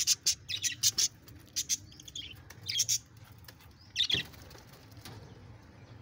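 Caged budgerigars chirping: quick clusters of short, sharp, high chirps through the first four seconds, loudest about four seconds in, then only a faint background.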